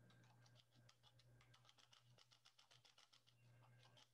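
Very faint computer keyboard typing: quick, irregular soft keystrokes over a steady low electrical hum, close to silence.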